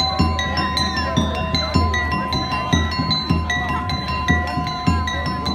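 Street performer's bass drum beaten in a steady rhythm, about two beats a second, with a bright ringing metal percussion tone held over it: the live accompaniment of a monkey street show.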